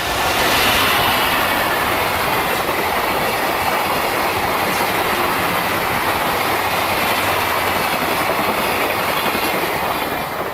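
Train passing close by: a loud, steady rush of wheel and rail noise that builds in the first second and drops away near the end.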